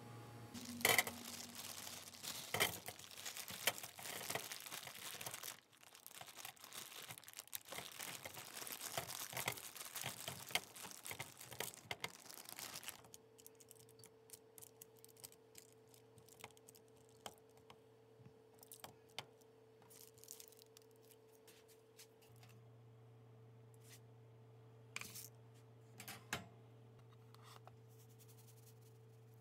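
Plastic bag of frozen tater tots crinkling and being torn open, with the tots spilling and clattering onto a foil-lined baking sheet for about the first dozen seconds. Then it goes much quieter: a steady low hum with occasional light taps and clicks as the tots are set in rows on the foil.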